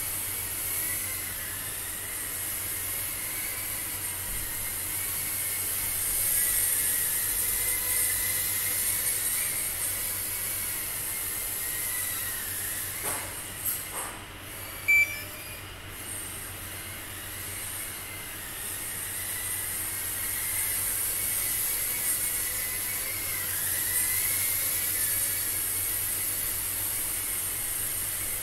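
Microdrone motors and propellers whining steadily in flight, the pitch rising and falling with throttle. About halfway through come a couple of knocks and a short sharp click as the drone bumps into something, and then it flies on.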